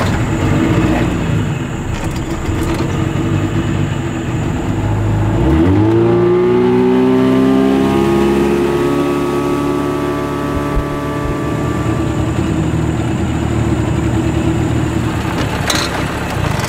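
Boat's outboard motor running under way, throttled up about five seconds in, then holding a steady higher pitch.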